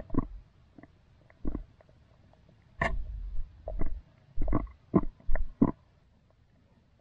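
Underwater sound heard through a submerged camera: irregular muffled knocks and gurgles, about eight of them. The longest and loudest comes about three seconds in, and four follow in quick succession near the end.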